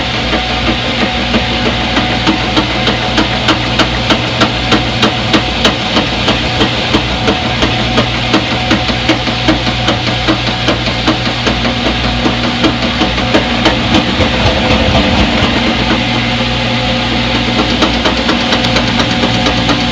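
Front-load washing machine running: a steady motor hum with a knock that repeats about two to three times a second, easing briefly past the middle before returning.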